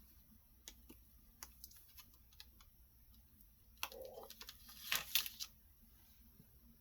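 Scattered light clicks and taps of small plastic crafting pieces, clear stamps and a stamp platform, being handled and set on a tabletop, with a louder flurry of clattering handling about four to five seconds in.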